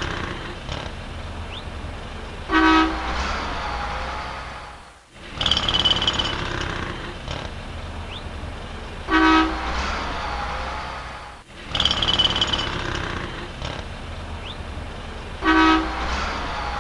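Street traffic with a car horn giving one short honk in each pass of a short recording that loops about every six seconds, so three honks in all. Each pass opens with a brief high steady tone over the traffic.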